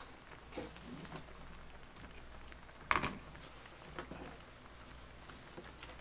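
A few light clicks and taps of small objects being handled at a table, the loudest about three seconds in, over a low steady hum.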